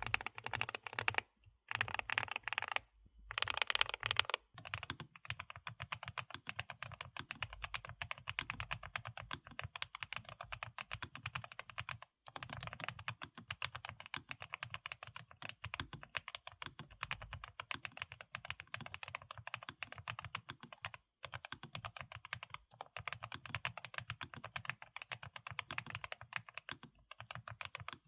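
NuPhy Kick75 low-profile mechanical keyboard with Nano Red linear switches being typed on, a rapid, steady stream of keystroke clacks with a few short breaks.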